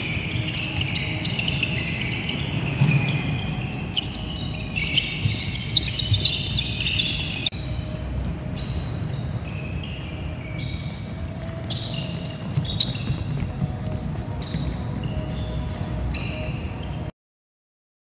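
Many athletic shoes squeaking and feet thudding on a wooden sports hall floor as a group runs footwork drills, with frequent short, high chirps over the patter of steps. It cuts off abruptly near the end.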